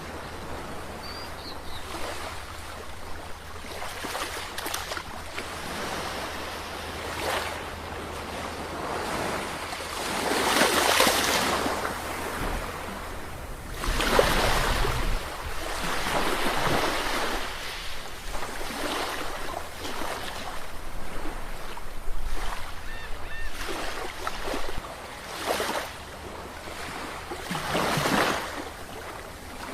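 Sea waves washing in and breaking, with a steady hiss of surf and a louder surge every few seconds.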